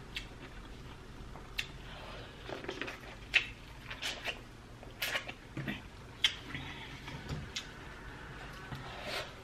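Close-up eating sounds of sweet corn on the cob being bitten and chewed: irregular sharp crunching clicks as the kernels are bitten off and chewed, about one every second or so.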